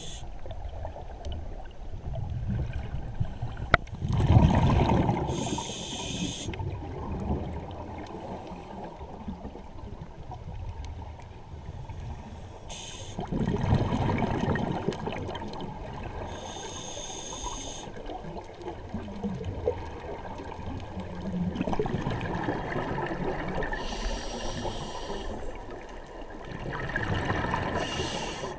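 Scuba diver breathing through a regulator underwater. A few slow breaths, each a brief hiss followed by a gurgling surge of exhaled bubbles, over a low steady rumble of water.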